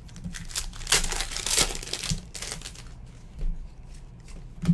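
Foil trading-card pack crinkling and tearing as it is opened by hand, loudest from about a second to two and a half seconds in. After that come scattered light clicks of cards being handled.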